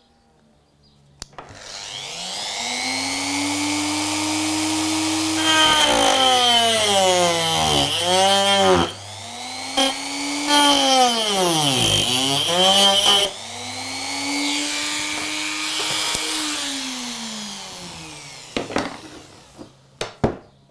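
Dremel rotary tool with a thin 0.7 mm cutting disc spinning up, then grinding through the metal rails of model railway track in two loud passes with a high screech, its pitch dipping under the load of the cut. It then winds down, followed by a few light clicks.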